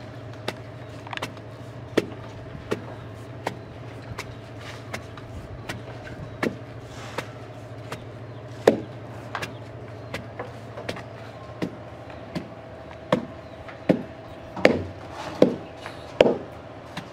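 Wooden pestle pounding boiled cassava and plantain into fufu in a wooden mortar: a steady run of dull thuds about every three-quarters of a second, softer in the middle and hardest near the end.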